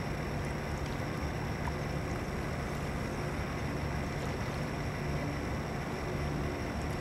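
A steady low engine drone that stays even throughout, with no distinct events.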